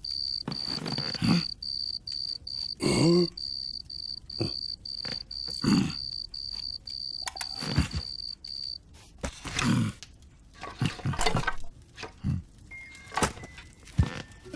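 A cricket chirping in an even, pulsed trill that stops about nine seconds in, under a cartoon bear's repeated short grunts and grumbles, each falling in pitch.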